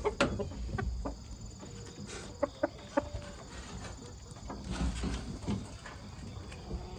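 Chickens clucking now and then, short scattered calls mixed with small clicks and rustles.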